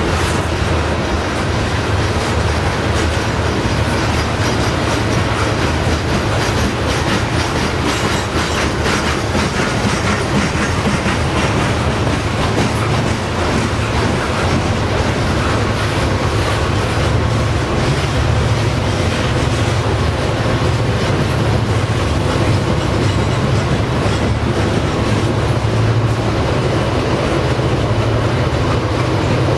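Loaded coal hopper cars of a freight train rolling past steadily, their wheels clattering over the rail joints. A low engine rumble grows stronger in the second half as the two rear SD40E diesel helper locomotives pushing the train approach.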